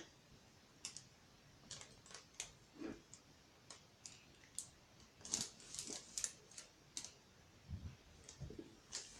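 Faint, irregular clicks and taps of small clock parts being handled: the hour hand and the shaft of a clock movement being fiddled with by hand.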